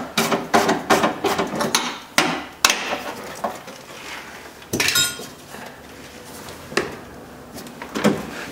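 Quick metallic clicks and knocks of a window-regulator bolt being worked out of a steel car door, with a louder knock and a short metallic ring about five seconds in, then a few scattered clicks.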